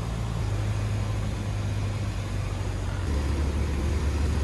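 Cessna 152's four-cylinder Lycoming engine and propeller droning steadily, heard inside the cabin. The low hum steps down in pitch twice, about half a second in and again after about three seconds.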